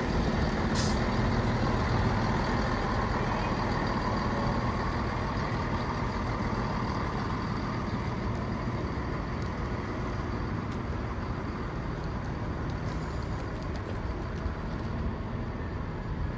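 LNER Azuma train departing, its steady hum and rumble slowly fading as it pulls away.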